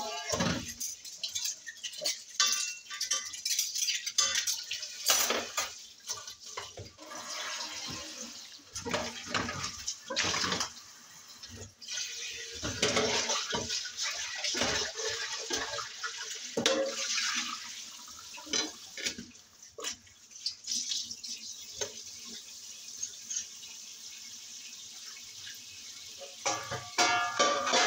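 Washing up at a stainless-steel kitchen sink: water running from the tap, with frequent clinks and knocks of dishes and utensils.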